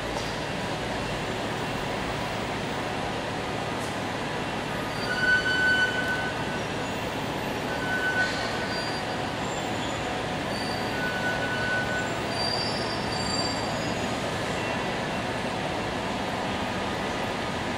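Steady city street traffic noise, with a few brief high-pitched squeals about five seconds in, around eight seconds in, and again around twelve seconds in.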